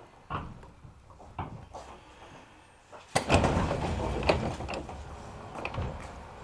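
Passenger doors of a JR 205 series electric commuter train opening at a station stop: a sudden rush of air and sliding about three seconds in that dies away over a couple of seconds. It follows a few light knocks.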